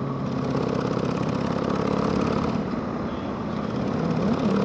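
Harley-Davidson Sportster's air-cooled V-twin running at a steady cruising pitch while riding, over a rush of road noise. Near the end the engine note briefly rises and falls.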